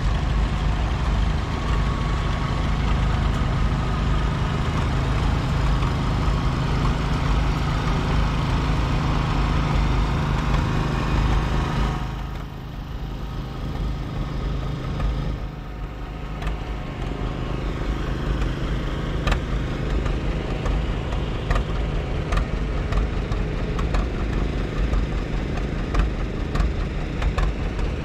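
Antique tractor engines running. A red Farmall drives by with a steady engine drone that falls away about twelve seconds in. Then a two-cylinder John Deere comes past, its engine sound broken by many sharp, uneven exhaust pops.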